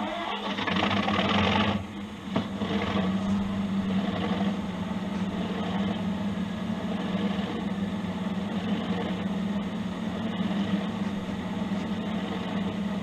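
Accurascale OO gauge Class 37 model locomotive's DCC sound decoder playing a diesel engine start-up through its onboard speaker: louder for the first couple of seconds, then settling into a steady idle with a low hum.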